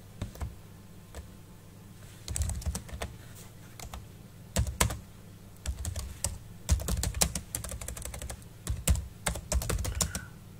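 Computer keyboard keystrokes: typing in quick irregular runs of clicks with short pauses between them, starting about two seconds in.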